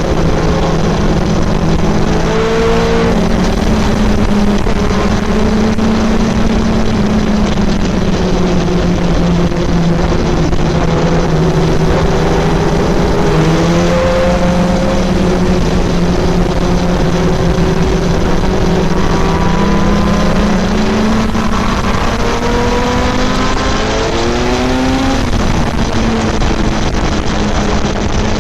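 BMW S1000RR inline-four sportbike engine running at a steady pitch while riding, its pitch climbing briefly under acceleration near the end, over a constant rush of wind and road noise.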